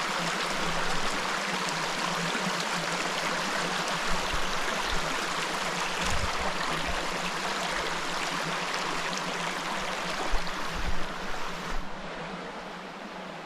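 Steady rush of a small mountain stream running over slate rock, with a few low bumps near the end. The sound drops in level about twelve seconds in.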